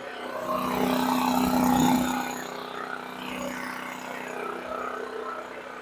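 Titan Industrial generator's engine running with its air breather off. It gets louder from about half a second in, eases back at about two seconds, then runs steadily.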